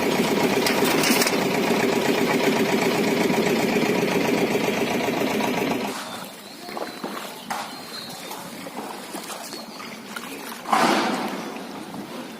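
A small engine running steadily, cutting off abruptly about six seconds in. A quieter outdoor background follows, with scattered clicks, faint chirps and one brief louder rush of noise near the end.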